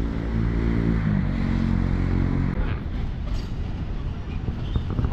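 A motor vehicle engine running steadily over street noise. Its hum rises slightly in pitch about a second in and fades out at around two and a half seconds.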